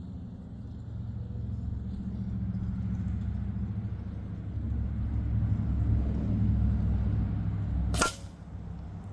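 A single sharp shot from a .22 calibre underlever spring-piston pellet rifle near the end, over a low rumble that swells and then fades.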